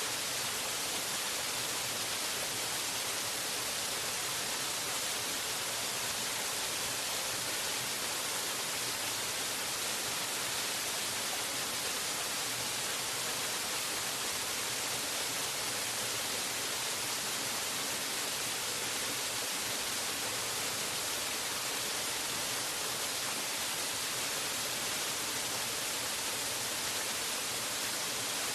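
Waterfall: falling water making a steady, unbroken rushing hiss, strongest in the high end, with no changes.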